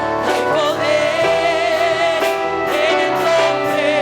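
Live worship music: singing with vibrato over sustained keyboard chords and band accompaniment, a Spanish-language praise song.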